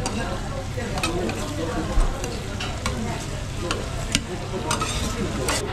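Monjayaki batter and chopped cabbage sizzling on a hot iron griddle while two metal spatulas scrape, chop and tap against the plate in quick, irregular clicks.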